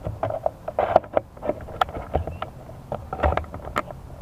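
Irregular clicks, taps and short rustles of hands handling the quadcopter close to the camera's microphone.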